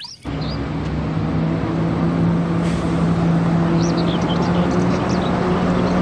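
Single-decker bus's diesel engine running with a steady hum, cutting in abruptly just after the start, with birds chirping in the background.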